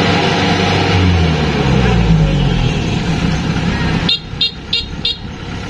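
Rice combine harvester's diesel engine running, its pitch falling as the revs drop. About four seconds in, four short high electronic beeps sound, about three a second.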